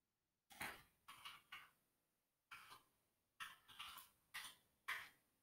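Faint, scattered clicks of computer keyboard keys being typed, in short clusters between stretches of silence.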